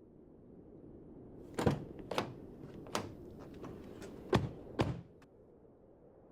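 Car doors being opened and shut as people get into a car: a string of about five sharp thuds and clicks over a few seconds.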